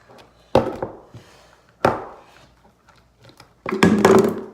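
A spoon knocking against the mixing bowl while stirring thick slime: two sharp single knocks about a second apart, then a quick run of knocks near the end.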